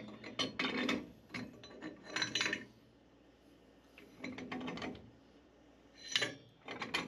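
Pipe wrench turning a threaded black steel pipe tight into a fitting: metal jaws gripping and rasping on the pipe with clicks, in several short bursts separated by pauses.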